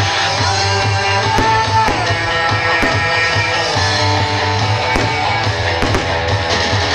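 Loud rock music with guitar, playing continuously at a steady level.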